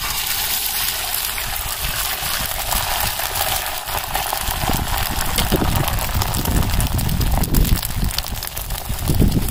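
Beaten egg with chopped onion and green chilli frying on a hot black iron griddle (tawa), just poured on and sizzling steadily.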